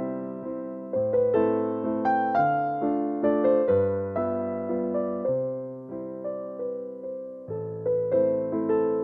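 Background music: a keyboard melody of struck notes that ring and fade, over a bass line that changes every second or two.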